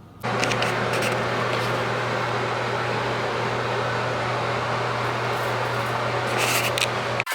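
Steady loud rushing noise with a constant low hum, like a fan or blower running. It starts suddenly just after the beginning and cuts off abruptly near the end.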